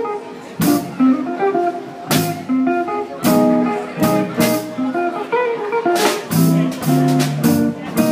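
Jazz trio playing: archtop electric guitar picking a melodic line over plucked upright double bass notes, with drum kit strokes and cymbal hits keeping time.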